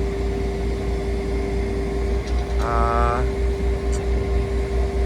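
A crane's engine running steadily at the lift site, with a constant whine and a low rumble that pulses evenly in the second half. A brief pitched, voice-like sound comes near the middle.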